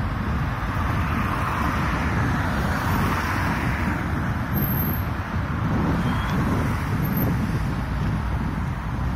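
Road traffic going past: steady tyre and engine noise of cars, swelling about one to three seconds in as a vehicle passes close by.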